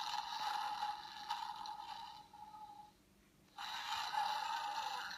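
Tinny playback of a recorded sound effect from a children's sound book's small speaker: a noisy, scratchy sound with no low end, breaking off briefly about three seconds in and starting again.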